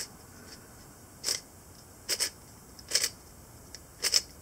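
Stickerless 3x3 speed cube, a Guoguan Yuxiao, being turned by hand: about seven sharp clacks of its layers snapping round, some in quick pairs, unevenly spaced.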